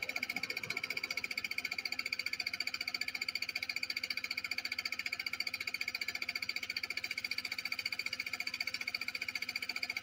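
Scooter engine being cranked on its electric starter without firing: a fast, even chugging under a steady high whine from the starter. It is a failed cold start.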